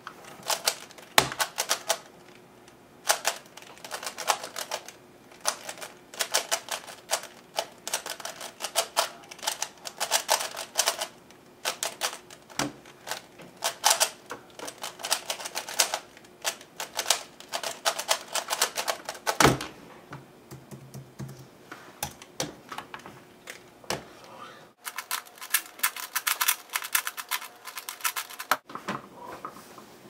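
FII 3x3 speedcube lubricated with shock oil being turned rapidly one-handed: fast runs of plastic clicking as the layers snap round, broken by short pauses, with a few louder knocks.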